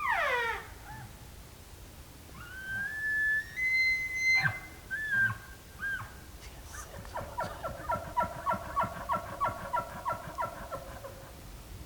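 Bull elk bugling: a high whistle that rises in steps, followed by a long run of quick chuckling grunts, about three a second. The bull is still worked up and calling.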